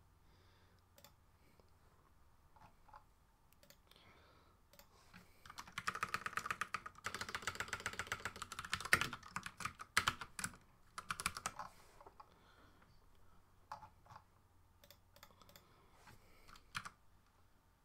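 Typing on a computer keyboard: a few scattered key presses, then a fast run of keystrokes from about six to nine seconds in, followed by a few shorter bursts and isolated clicks.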